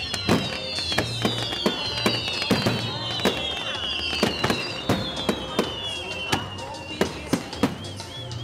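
Fireworks display: aerial shells bursting in quick succession, several sharp bangs a second. Over the bangs run overlapping high whistles, each sliding down in pitch, and near the end a wavering whistle.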